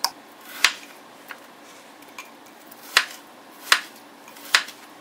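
Plastic spoon stirring oats in a glass mason jar, knocking against the glass with four sharp clicks spread over a few seconds.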